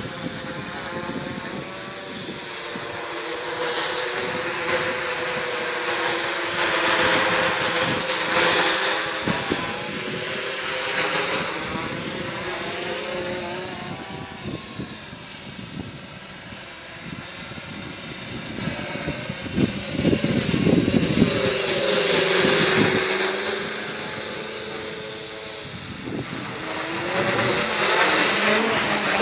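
Quadcopter's electric motors and propellers whining overhead, the pitch wavering as it manoeuvres and the sound growing louder and fainter as it comes nearer and moves away, loudest about a third of the way in, again around two-thirds and near the end.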